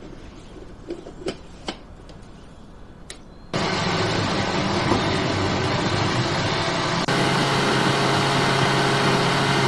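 A few light clicks and knocks, then a loud, steady machine whir with a low hum starts suddenly about three and a half seconds in. It shifts to a slightly different, steadier pitch about halfway through.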